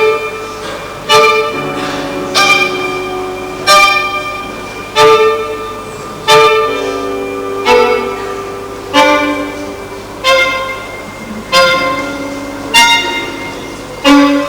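Violin and guitar improvising together. A sharp chord strike rings out about every second and a quarter, steady and repeating, over held violin notes.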